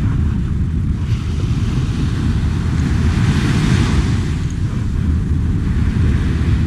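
Wind buffeting the microphone in a steady low rumble, with small waves washing up the beach; the surf hiss swells about three seconds in.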